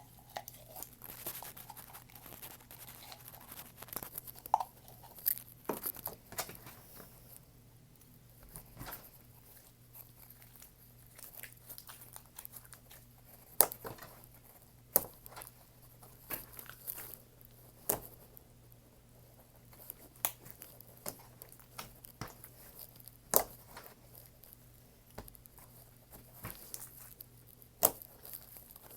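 Hands squishing, stretching and poking slime with little fimo pieces mixed in, giving irregular sharp clicks and pops with some crinkly crunching. A faint steady hum runs underneath.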